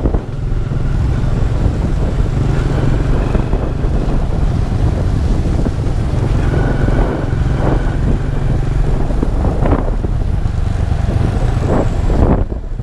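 Honda EX5 underbone motorcycle running steadily while being ridden, nearly covered by heavy wind rumble on the microphone.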